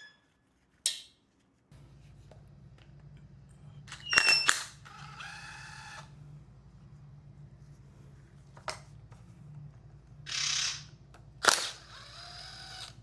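Metal engine parts and hand tools knocking and clinking as a part is worked loose and slid out, with a few sharp clanks that ring briefly, the loudest about four seconds in and near the end. A steady low hum sets in under it about two seconds in.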